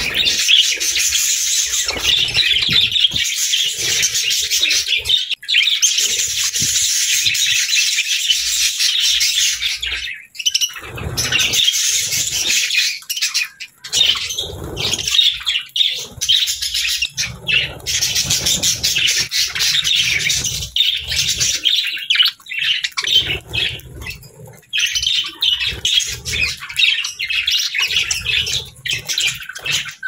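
A flock of budgerigars chattering and chirping continuously, a dense high warble with a couple of brief lulls partway through.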